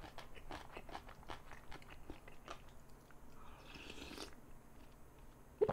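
Close-up mouth sounds of eating: egg gimbap chewed with many small wet clicks, then a brief hissy slurp of ramen noodles about three and a half seconds in. A short, sharp, louder sound comes right at the end.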